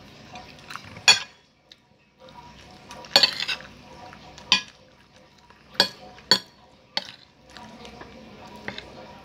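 Metal spoon and fork clinking and scraping against a plate while food is scooped up: about seven sharp clinks, the loudest about a second in, with a quick run of scrapes around three seconds in.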